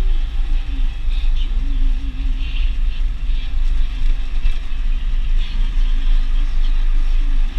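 Deutz DX 4.70 tractor's air-cooled four-cylinder diesel heard from inside the cab, running steadily as the tractor drives along.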